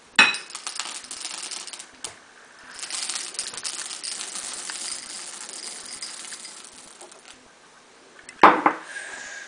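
Chocolate chips being poured into a mixing bowl of batter, a rapid patter and clinking of many small hard pieces landing, in two main pours over the first six seconds, with one louder clatter near the end.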